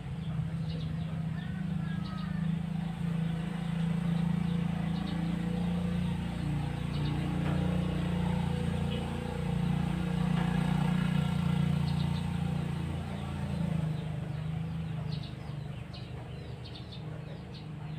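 A steady low machine hum, easing off about fifteen seconds in, with faint bird chirps over it.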